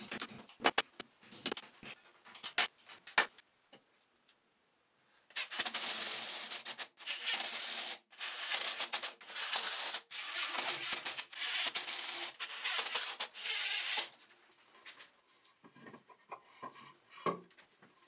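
A hammer strikes a fixing in a tiled wall in a string of sharp taps for about three seconds. After a short pause, a power drill-driver runs in repeated bursts of about a second each for some nine seconds, driving the bracket screws. Lighter knocks and handling follow near the end.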